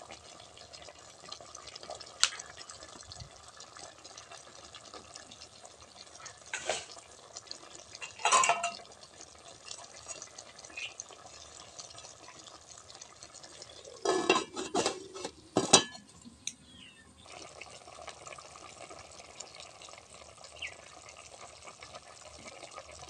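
Metal cooking pot and utensil clinking and scraping, heard as a single clink about two seconds in, louder clattering around eight seconds, and a quick run of clatters at about fourteen to sixteen seconds. Between them is a faint steady hiss from the pot of braised pork and eggs simmering.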